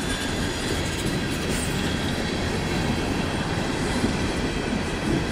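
Freight cars of a passing CSX freight train rolling by close to the track: steel wheels running on the rails, a steady rolling noise with no breaks.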